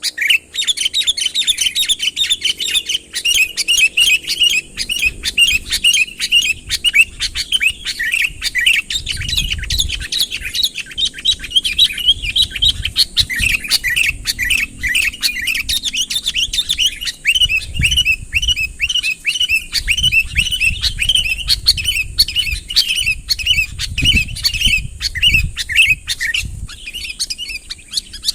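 Sooty-headed bulbul (kutilang) in full song: an unbroken stream of quick, bright chirps and warbles.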